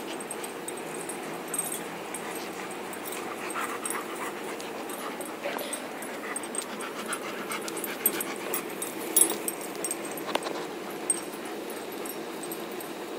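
A dog panting with soft whimpers, over a steady low rustle and a few short sharp clicks.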